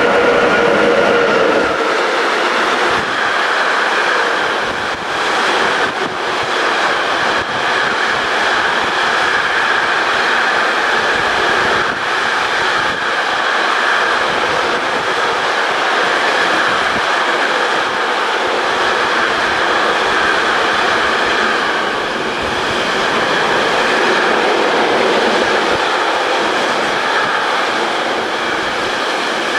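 Container freight train hauled by a class 363.5 electric locomotive passing through at speed: a loud, steady rumble and rattle of the wagons rolling by, with scattered clacks of wheels over the rail joints.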